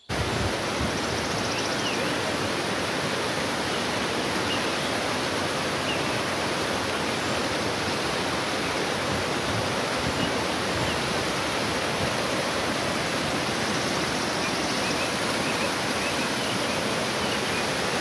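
Small mountain waterfall cascading over rocks: a steady, unbroken rush of water.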